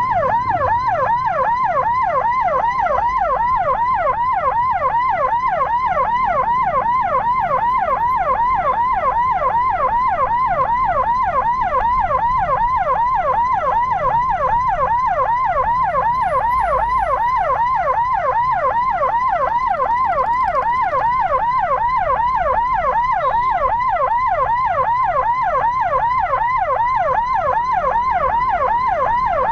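Electronic siren in a fast yelp: the same sweep repeats about four times a second without a break.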